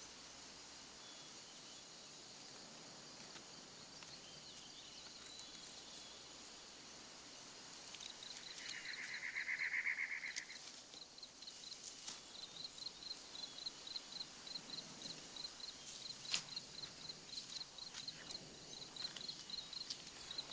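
Field insects chirping: a rapid, evenly repeating high chirp runs from about 8 seconds in. Over it a louder buzzing trill swells for about two seconds and then stops. Near the end a sheet of paper crinkles as a folded letter is opened out.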